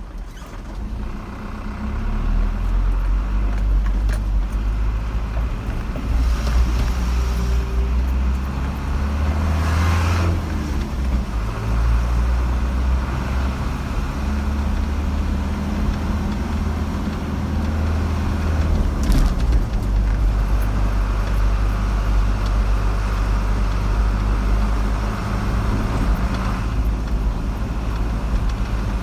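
Car driving along a road: a steady low rumble of engine and tyre noise, with a few brief swells of hiss about a third of the way in, again soon after, and about two-thirds of the way through.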